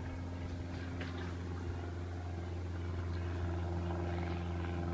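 An idling engine giving a steady low hum with a few even overtones above it.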